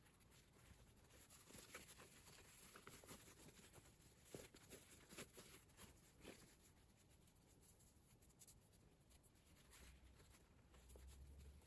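Near silence with faint, scattered rustling of cotton cloth as a sewn shirt collar is turned right side out and smoothed by hand.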